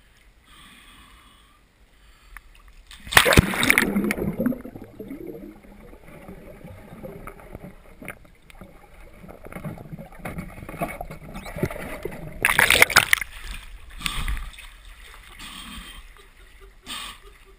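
Pond water splashing and sloshing as a person moves and works in it. Two loud splashes, about three seconds in and again about twelve seconds in, stand out over lighter sloshing.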